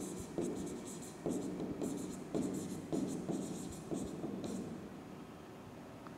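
Handwriting: a series of short writing strokes, about two a second, that stop about four and a half seconds in.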